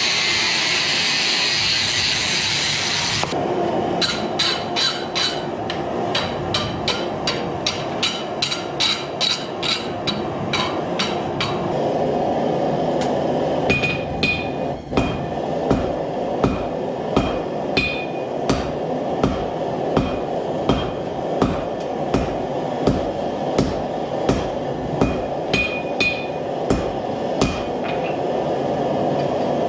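Hand hammer forging steel on an anvil: a long run of evenly spaced ringing strikes, quick at first, then slower and heavier with a clear ring from about twelve seconds in, over a steady rushing noise. It opens with about three seconds of harsh noise.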